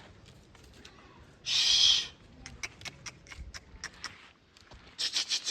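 A goat gives a short, hoarse, rough bleat about a second and a half in. Scattered light clicks and taps follow, and another rough call starts near the end.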